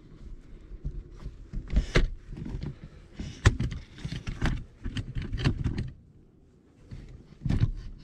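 Handling noise from a camera being set up on a tripod: irregular clicks, knocks and rubbing, a brief lull, then a final cluster of knocks.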